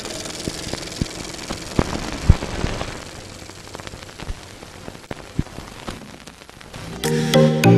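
A crackling hiss with scattered sharp pops, like the surface noise of old film or a worn record, fading over several seconds. Electronic music with a beat comes in near the end.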